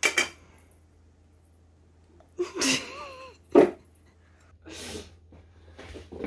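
A man sneezing: a drawn-in, wavering breath, then a sharp burst about three and a half seconds in, with a few short noisy sounds around it.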